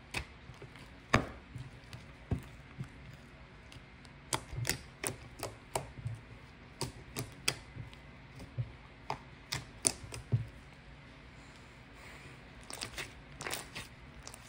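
A series of irregular sharp clicks and taps, some single and some in quick clusters, the loudest about a second in and again near ten seconds.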